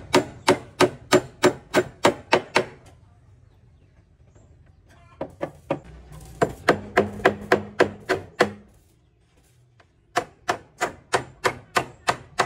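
Rapid, even blows of a hand tool, like hammering, about three a second, in three runs with short pauses between.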